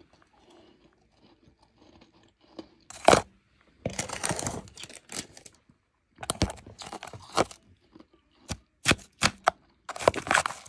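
Blended, powdery ice being chewed close to the microphone: crisp, irregular crunches. It is quiet for the first couple of seconds, then come clusters of crunching and, near the end, several short single crunches.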